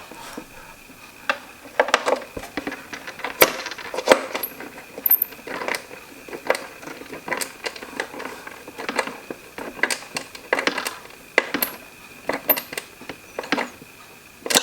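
Screws being driven back into a plastic humidifier housing with a hand screwdriver: irregular small clicks and knocks of metal on plastic, a few a second.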